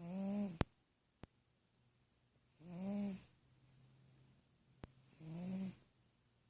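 A sleeping pet snoring: three slow snores about two and a half seconds apart, each a short tone that rises and falls, with a hiss of breath. A few sharp clicks fall between the snores, the first, just after the opening snore, the loudest.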